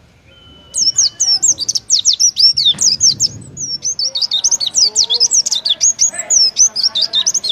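Oriental white-eye (pleci) in full 'gacor' song: a fast, unbroken stream of sharp high chirping notes, the rapid 'tembakan' burst style. It starts about a second in after a brief pause.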